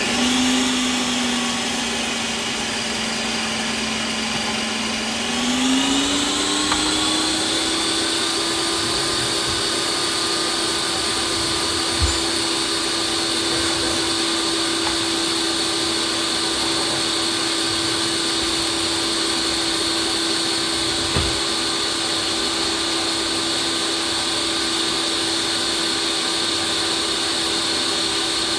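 Ninja Creami ice cream maker running its Lite Ice Cream program, its blade spinning down through a frozen pint of ice cream base. The motor whine starts, rises in pitch about five seconds in and then holds steady, with two brief low knocks partway through.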